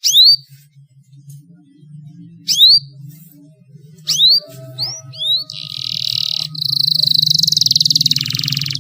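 Domestic canary singing: loud, separate rising whistled notes, then a fast rolling trill from a little past halfway.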